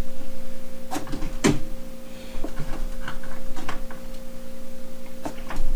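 Plastic retail packaging being handled: a string of small clicks, knocks and crinkles, the sharpest about a second in and again near the end, over a steady background hum.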